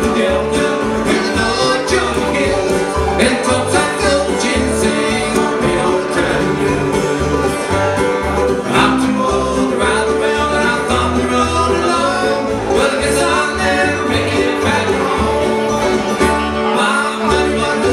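Bluegrass band playing: upright bass keeping a steady beat under acoustic guitar, mandolin and five-string banjo.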